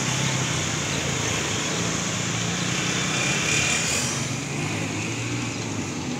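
Several motorcycles running and riding about at low speed, a steady mixed engine drone that eases slightly after about four seconds.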